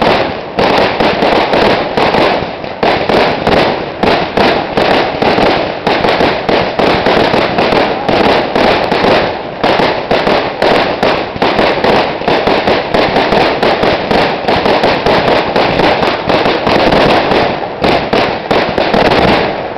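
Aerial fireworks bursting in a dense, continuous barrage of sharp bangs, several a second, with no let-up.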